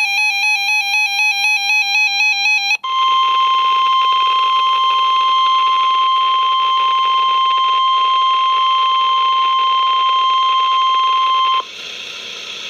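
NOAA Weather Radio EAS alert. The warbling digital screech of a SAME header data burst ends about three seconds in. It gives way to the steady 1050 Hz Weather Radio warning alarm tone, which holds for about nine seconds and then cuts off into a quieter radio hiss.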